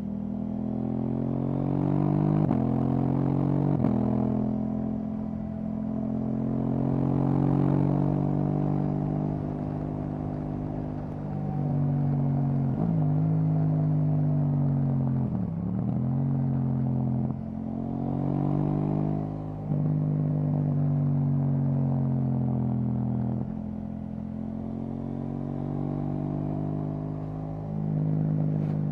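KTM 790 Duke's 799 cc parallel-twin engine through an Akrapovic exhaust, under way. The pitch rises with the throttle and drops sharply at each of several gear changes, with stretches of steady cruising and one brief easing-off in between.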